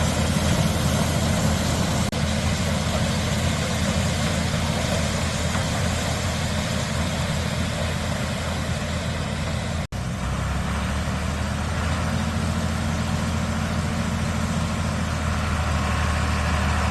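John Deere 4020 tractor running steadily under load while pulling a working pull-type corn sheller. The sound cuts out for an instant about ten seconds in, then the same steady running resumes.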